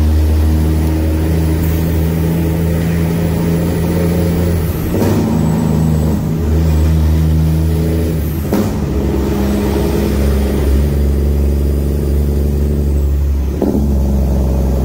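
Straight-piped Detroit Series 60 14-litre diesel of a 2006 Western Star semi truck running steadily under way, with a loud exhaust heard from inside the cab. Its note breaks briefly and settles at a new pitch about five seconds in, again near the middle, and once more near the end.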